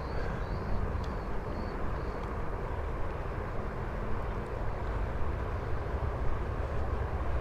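Steady low outdoor rumble, with a few faint high chirps in the first two seconds.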